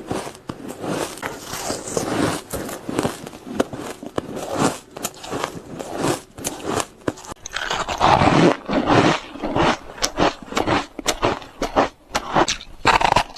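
Ice being bitten and crunched in the mouth, close to the microphone: a rapid run of sharp cracks and crunches that grows louder about eight seconds in.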